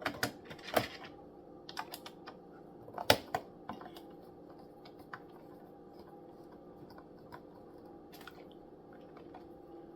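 Small plastic clicks and taps as the battery cover of a toy RC car is fitted and screwed down, thickest in the first four seconds and sparse after, over a faint steady hum.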